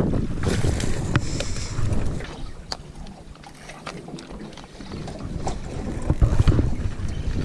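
Wind buffeting the microphone on a small boat at sea, in two strong gusts with a quieter lull in the middle, over the wash of water around the hull. A few sharp clicks cut through.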